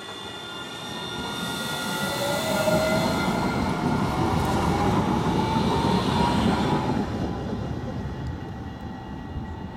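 RET Alstom Citadis low-floor tram passing close by on its rails, its wheel rumble swelling and then fading after about seven seconds. A whine from its electric drive rises in pitch as it goes by.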